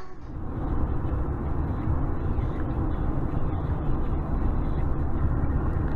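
Steady road noise of a car driving at highway speed, tyre and wind noise heard from inside the cabin.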